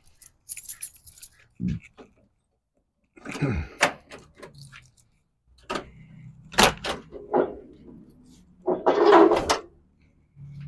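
Keys jangling and a key worked in the driver's door lock of a 1965 Chevy Impala, a few sharp clicks of the lock and latch, then the door pulled open about nine seconds in.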